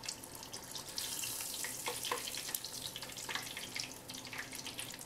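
Breaded sausage croquettes deep-frying in a small pot of hot oil: a steady sizzle with scattered crackles and pops, near the end of frying as they turn golden.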